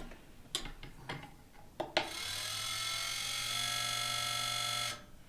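A few sharp clicks, then the Vanguard Speedloader's electric motor gearbox running for about three seconds with a steady whine and stopping abruptly. It doesn't sound good and the main gear is not turning: the motor gearbox is broken.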